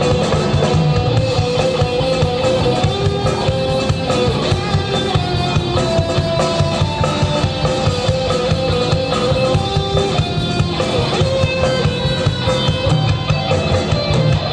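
Rock band playing an instrumental passage: guitars over a steady drum kit beat, with a long held melody line on top that moves in steps.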